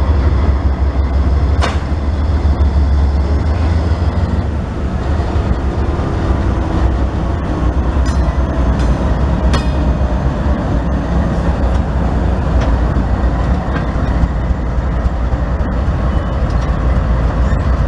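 Norfolk Southern GE Dash 9-40CW diesel locomotives passing close at the head of an intermodal train, their engines running with a deep, steady rumble. A few sharp clicks come through, the loudest about two seconds in and around eight to ten seconds in.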